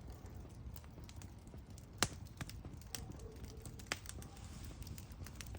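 Wood campfire crackling, with sharp irregular pops and snaps, the loudest about two seconds in, over a low steady rumble.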